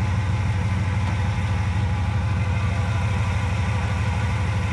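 A pickup truck engine idling steadily with an even low rumble.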